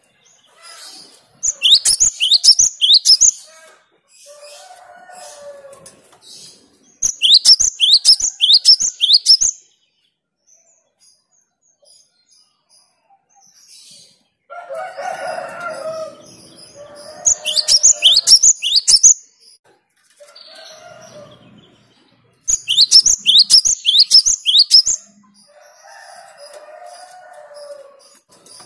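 Gelatik batu (cinereous tit) singing: four bursts, each about two seconds, of rapid, high, sharp repeated notes. Softer, lower chattering calls come in the gaps between the bursts.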